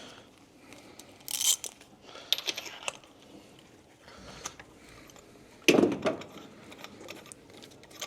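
Scattered clicks and scrapes of hand tools working at the spark plugs, a ratchet and spark plug socket, with one heavier knock about six seconds in.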